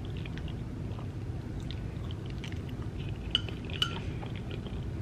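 Metal fork clinking and scraping on a ceramic plate of macaroni and cheese, with two sharper clinks about half a second apart a little past three seconds in, and soft chewing between them.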